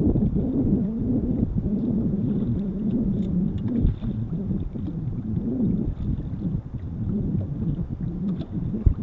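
Low, wavering rumble of wind on the microphone and choppy lake water against the boat's hull.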